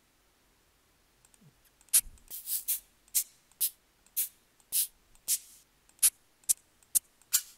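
Shaker samples auditioned one after another in FL Studio's browser: a string of short, hissy shaker hits, about two a second, some sharp and some longer, starting about two seconds in.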